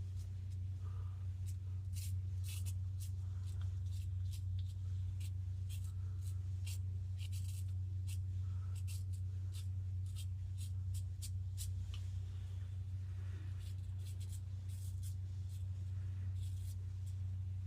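Vintage GEM push button single-edge razor scraping through lathered stubble in short, scratchy strokes that come irregularly, some in quick runs, over a steady low hum.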